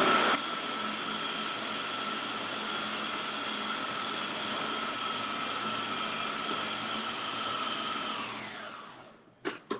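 Countertop food processor motor running steadily as it blends cooked taro into a paste, then spinning down and stopping near the end, with its whine falling in pitch. A couple of short clicks follow.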